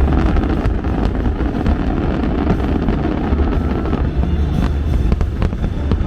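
Fireworks crackling and bursting over loud show music, with a heavy low rumble throughout.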